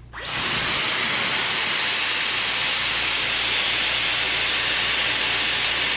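Dyson Airwrap styler switched on at the start, rising within a fraction of a second to a steady hiss of air blowing through its curling barrel as it draws a section of hair around the barrel.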